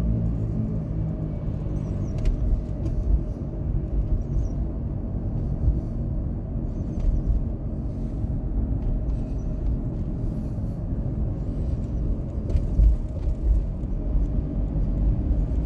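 2024 Ford F-150 PowerBoost hybrid truck on the move: a steady low rumble with a hum of several steady tones running through it. The owner hears this humming in both electric and gasoline mode and cannot identify it.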